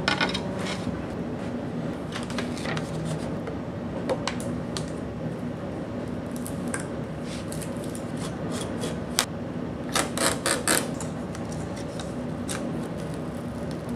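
Hands applying a PEI sheet to a glass 3D-printer bed and trimming it with a utility knife: rubbing and scraping with scattered light taps, and a quick run of sharp scrapes about ten seconds in, over a steady low hum.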